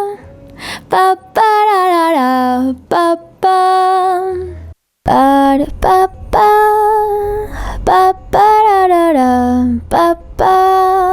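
Solo female voice singing a recorded vocal line in short phrases, some held notes sliding down in pitch, played back through a stereo 1176-style FET hardware compressor clone.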